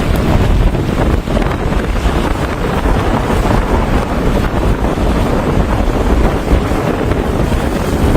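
Strong wind buffeting the microphone in a snowstorm: a loud, steady rush of noise with no break.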